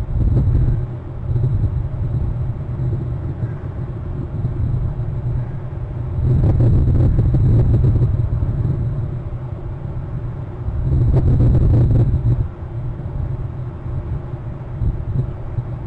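Wind buffeting an outdoor microphone: a low rumble that swells in two stronger gusts, one about six seconds in and one about eleven seconds in.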